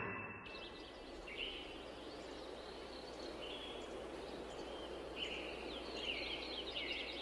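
Rural outdoor ambience: a steady background hiss with small birds chirping in short twittering bursts every second or two. A piano note is dying away at the very start.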